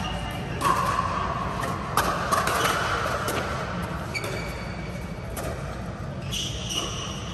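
Scattered sharp pops of pickleball paddles striking the ball, with a few brief high squeaks of court shoes, over a steady background hum.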